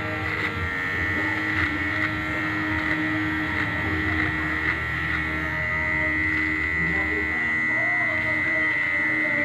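Cordless electric hair trimmer running with a steady high buzz, its blade held against the upper lip and chin trimming moustache and stubble.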